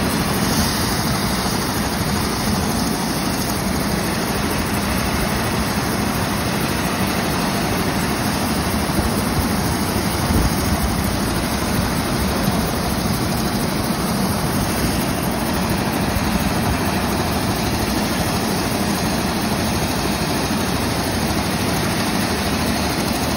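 Helicopter in flight, heard from inside the passenger cabin: a loud, steady din of engine and rotor noise that holds at an even level throughout.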